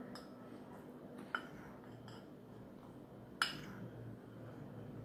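Metal teaspoon clinking against the bowls while flour is spooned into a stainless steel mixing bowl: two sharp clinks, the second louder, with soft scraping between.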